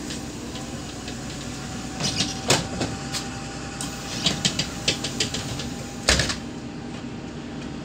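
Inside a Neoplan K4016td city bus standing still, its MAN D0826 six-cylinder diesel idling with a steady hum. Scattered clicks and rattles come in two short runs, and a single heavy thump sounds about six seconds in.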